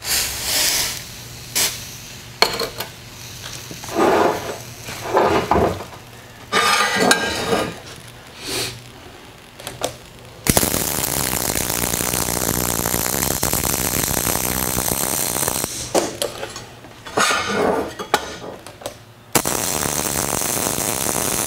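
MIG welder arc crackling steadily on steel in two runs of stitch welding, one of about five seconds starting halfway through and a second starting near the end. Before them comes a short hiss of anti-spatter nozzle spray, then clinks and knocks of the welding gun and steel parts being handled.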